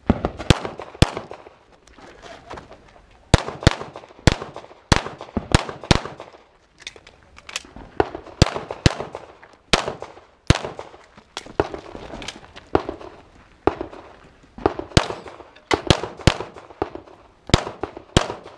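Semi-automatic pistol fired in rapid strings, many shots in quick pairs with sharp reports and short echoes, two shots per target. The strings are broken by short pauses as the shooter moves between positions, the longest at about one to three seconds in.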